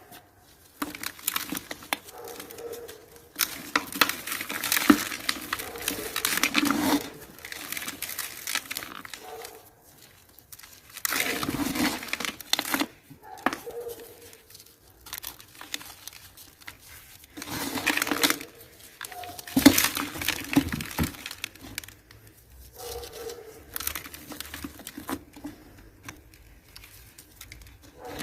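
Dry, gritty cement crumbling with crunching and crackling, in irregular bursts separated by short pauses.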